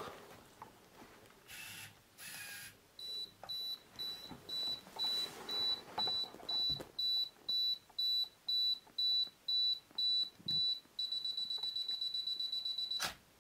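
Electronic beeper sounding a high-pitched beep about twice a second, then one steady beep for about two seconds that cuts off abruptly.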